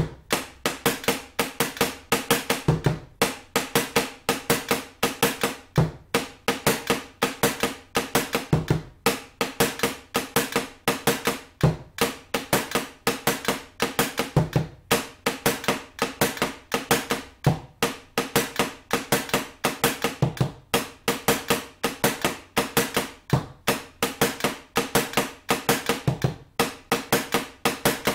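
Bombo, a rope-tensioned wooden bass drum laid on its side, played with two sticks in the cumbia tambora rhythm. A steady run of quick stick clicks on the drum's wooden edge, with a deep stroke on the drumhead about every three seconds, repeated bar after bar.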